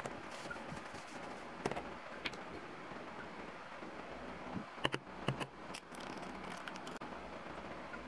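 A few light taps of a plastic measuring spoon on a stainless steel pot as flour is tipped in, then a quick cluster of sharp cracks about five seconds in as an egg is cracked on the pot, over a steady background hiss.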